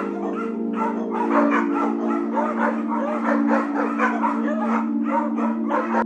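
Small dog yipping and whining in a rapid string of short high calls, over background music with a steady held chord.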